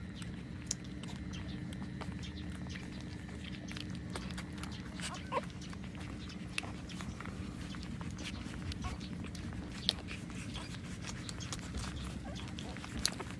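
Newborn puppies nursing from their mother: scattered small clicks throughout, with a short puppy squeak about five seconds in, over a steady low hum.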